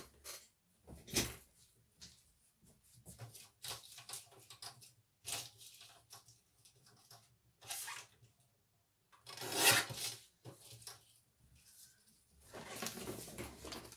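Card stock being handled and trimmed: scattered short rustles and scrapes of paper, with a longer, louder scrape about nine and a half seconds in and another near the end.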